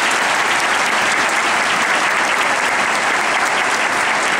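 A large audience applauding loudly and steadily.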